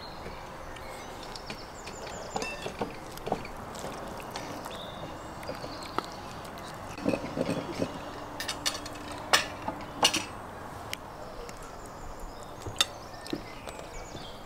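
Tableware clinking: a metal ladle, forks and spoons tapping against ceramic plates and a pot, a scatter of sharp clinks with short ringing, the loudest a little after nine and ten seconds in. A brief low sound comes about seven seconds in.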